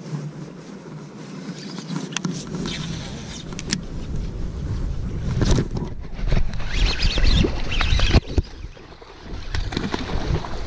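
Baitcasting reel being cranked and the rod handled as a hooked bass is reeled in to the side of the boat, with a low rumble of handling noise and a few sharp clicks.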